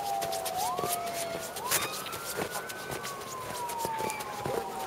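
Emergency vehicle siren wailing: a tone that slowly falls, sweeps up quickly twice in the first two and a half seconds, then slowly falls again.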